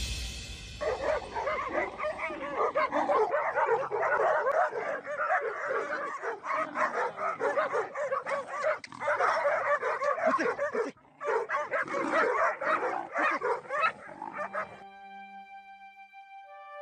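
A pack of dogs barking and yelping over one another as they mob a leopard. The barking cuts off near the end and soft music takes over.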